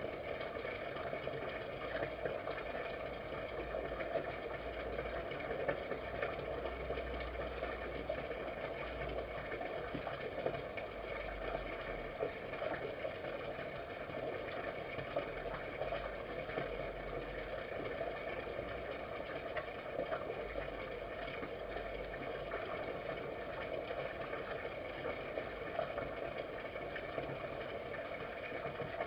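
Red fox eating from a food dish, with faint irregular crunching clicks over a steady droning background noise.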